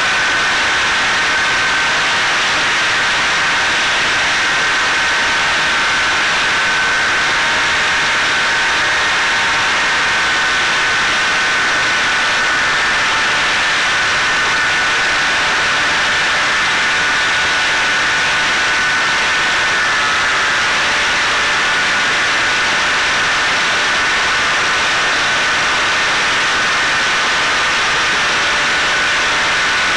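Electric motor and propeller of a Caipirinha 2 flying-wing FPV plane whining steadily in cruise, heard from the onboard camera over a constant rush of airflow; the pitch dips slightly a few times with throttle changes.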